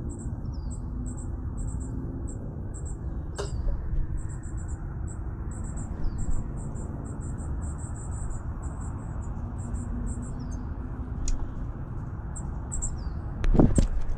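Outdoor chirping: short high chirps repeated about four times a second, with a few short falling bird calls now and then. Under it runs a steady low rumble from a cat-collar camera microphone, with a few clicks and a louder knock about half a second before the end.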